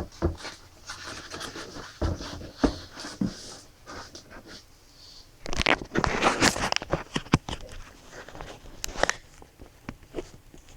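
Packaging being handled: irregular scratching, scraping and rustling with sharp clicks and knocks as the MacBook Air box and its inner support are worked open, busiest a little past the middle.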